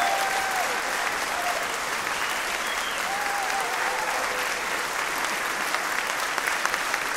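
Large audience applauding steadily, with a few faint cheers over the clapping.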